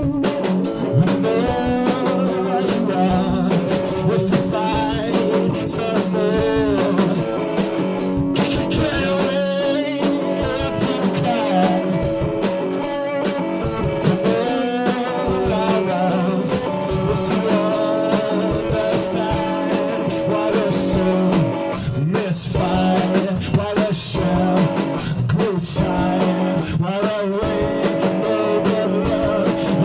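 A small blues-rock band playing live with electric guitar, instruments drastically out of tune.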